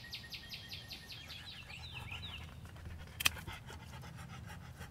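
A bird's rapid, evenly repeated high chirping, about six notes a second, fading out, followed by a few falling chirps. A single sharp click about three seconds in is the loudest moment.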